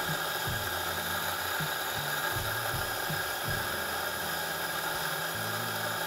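Fiorenzato F64XGI espresso grinder motor running continuously, grinding coffee beans through its burrs while the grind button is held during the grinder's first-run grind-regulation step. A steady, even grinding sound with no change in pitch or level.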